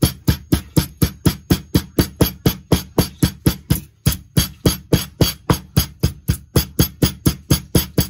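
Pestle pounding whole spices coarsely in a stone mortar: quick, even thuds about four a second, with a short dip in force around the middle.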